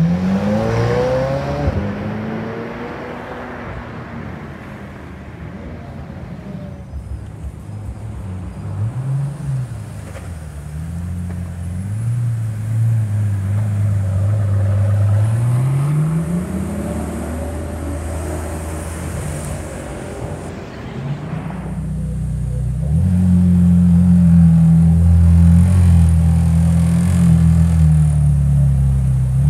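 Supercar engines in turn: a McLaren Senna's twin-turbo V8 revving up as it pulls away, then a Pagani's engine running with a rise in revs, and from about two-thirds of the way in a McLaren Senna's V8 idling loud and deep with small rises and falls.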